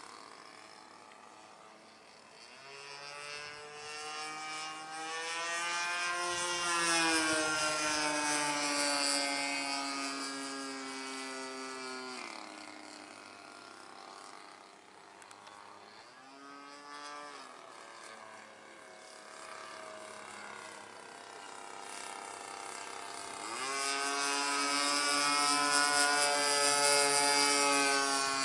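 Evolution 20GX2 twin-cylinder two-stroke gas engine with a 15x6 propeller, powering an RC airplane in flight. Its pitch and loudness rise and fall, swelling about three seconds in, dropping sharply around twelve seconds, briefly climbing again, then loud once more near the end.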